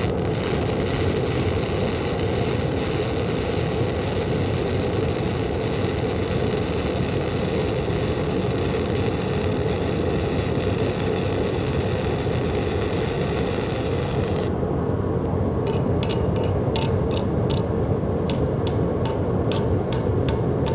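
Self-shielded flux-cored arc welding with 0.035 in. NR-211-MP wire: the arc runs with a steady crackling hiss while the contact tip is held too far from the work, so the wire hunts and feeds unevenly, which makes it sound a little different. About 14.5 s in the arc stops and a run of irregular clicks and scrapes follows.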